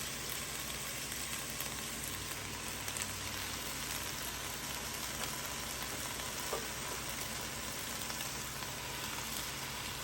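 Beetroot leaves sizzling steadily in a hot pot with chopped onion, garlic and jalapeño peppers, an even frying hiss.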